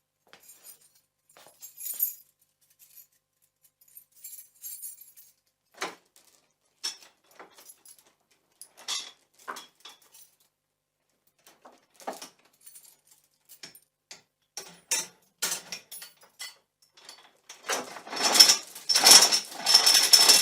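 Metal gate being handled: scattered clicks, knocks and light rattles of the latch and bars, then loud, sustained metal rattling and clanking for about the last three seconds.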